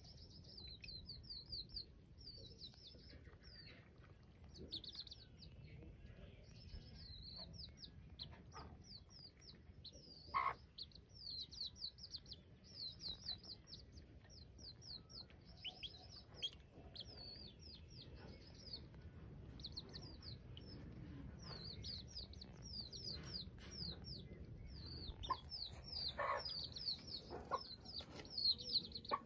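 Young chicks peeping without pause, many short, falling high chirps each second, with a few louder, lower clucks from the mother hen about ten seconds in and again near the end.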